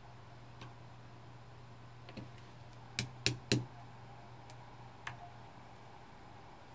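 A small hammer tapping a pin punch three times in quick succession about three seconds in, driving a split pin out of a metal watch bracelet link, with a few fainter metal clicks before and after.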